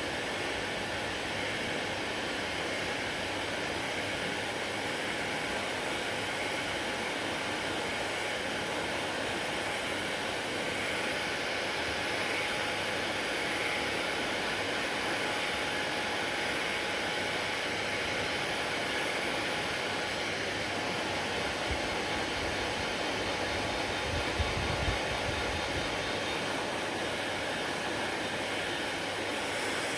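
Hair dryer running steadily: a constant rush of blown air with a faint thin whine. A couple of soft low bumps come about three-quarters of the way through.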